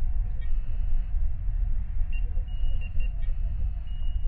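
Science-fiction starship bridge ambience: a steady low rumble under short electronic console beeps and chirps, which come in several times from about half a second in.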